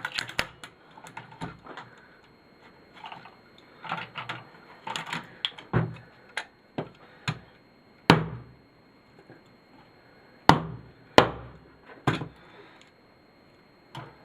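Hand tools clicking and knocking against a small TV's circuit board and a small box on its chassis as it is dismantled, with a run of light clicks and four sharp knocks in the second half.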